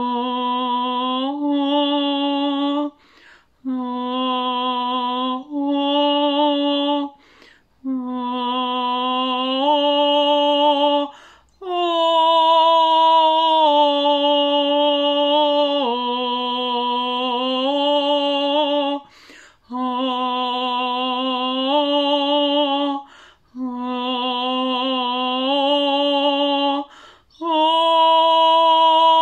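A woman's solo voice singing wordless, drawn-out vowel tones, several held notes to a phrase that step a little up and down in pitch, with short breaths between phrases.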